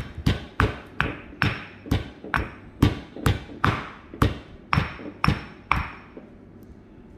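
Pestle pounding moringa leaves in a mortar: a steady run of about fourteen sharp strikes, roughly two a second, each with a short ringing tone. The strikes stop about six seconds in.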